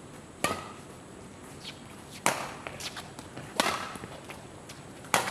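Badminton rally: rackets striking the shuttlecock four times, sharp cracks roughly one and a half seconds apart.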